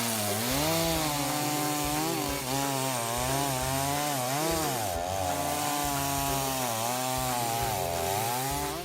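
Chainsaw cutting wood, its engine pitch repeatedly dipping and rising as the load on the chain changes, over a steady hiss of the chain in the cut.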